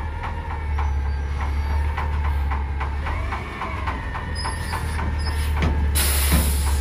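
Peterbilt 320 front-loader garbage truck's diesel engine running as the truck creeps forward, with a whine that rises and falls about halfway through. Near the end comes a loud burst of air-brake hiss.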